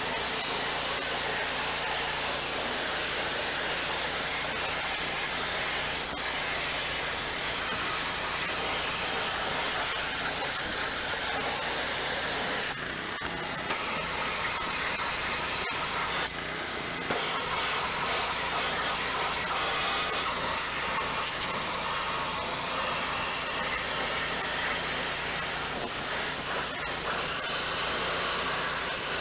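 Pressure washer spraying water into a truck's engine bay with a steady hiss that lets off briefly twice near the middle, while the truck's straight-six engine idles underneath.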